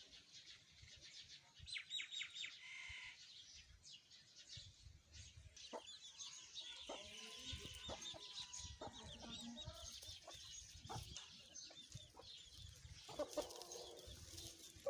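Chickens clucking faintly, with many short high chirps throughout and a louder run of clucks near the end.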